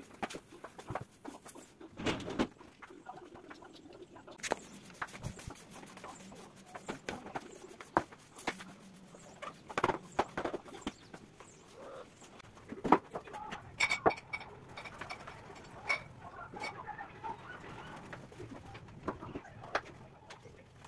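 Broom sweeping a tiled floor: irregular brushing strokes with scattered sharp knocks and clicks. A bird calls faintly in the background.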